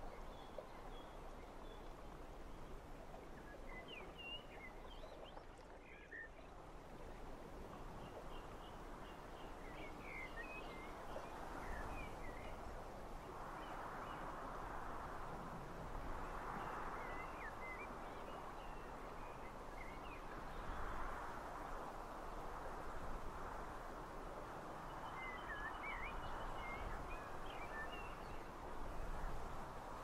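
Wind blowing in gusts that swell and ease, with faint, scattered bird chirps over it.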